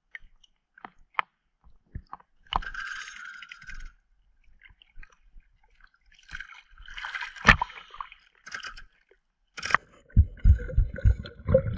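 Water sloshing and splashing close to the microphone at the surface, with scattered small clicks and two short bursts of splashing. About ten seconds in, the sound turns to low, muffled underwater thumps and rumble as the microphone goes under.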